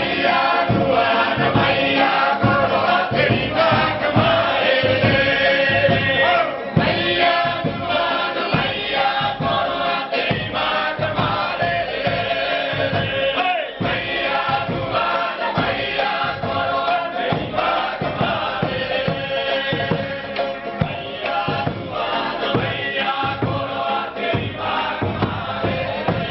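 Traditional Rapa Nui Polynesian dance song: a group singing together over a steady beat.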